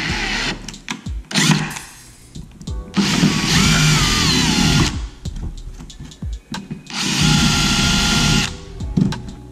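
Cordless drill with a 1/4-inch bit boring through a plastic kayak hull, run in short bursts: two brief ones near the start, then two longer runs of about two seconds each. During the first long run the whine bends up and down in pitch.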